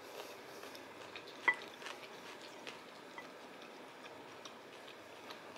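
A metal spoon faintly scraping and clicking against a dish while eating, with one sharper clink about one and a half seconds in.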